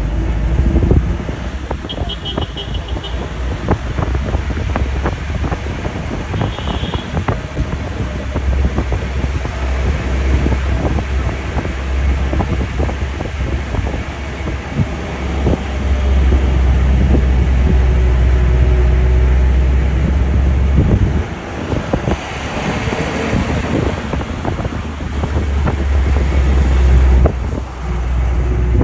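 Road vehicle travelling: a steady low rumble of engine and road, with frequent rattles and knocks and some wind on the microphone. Two short runs of high-pitched beeping come about two and seven seconds in.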